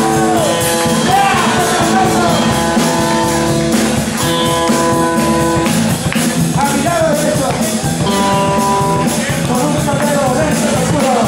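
Live rock band playing: electric guitars and a drum kit keeping a steady beat, with a man singing over them in sliding, bending lines.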